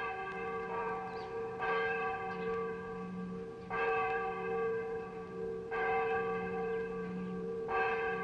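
A church bell tolling slowly, struck about every two seconds, each stroke ringing on into the next.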